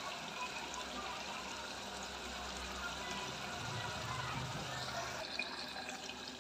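Chicken and potato curry sizzling steadily as its masala and curd fry in an aluminium pressure cooker.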